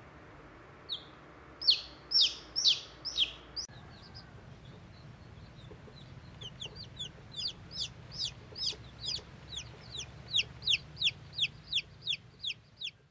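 Baby chick peeping: short, high-pitched peeps that slide downward. A few loud ones come in the first few seconds, then a steady run of about three a second.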